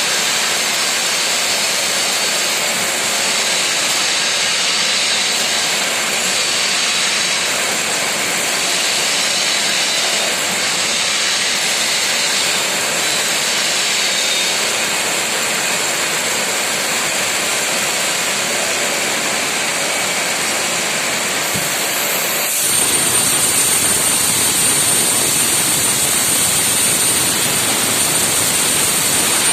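Cutting torch of a CNC beam-cutting machine, a loud steady hiss. About three quarters of the way through the sound shifts, becoming a little louder, with a steady high whine.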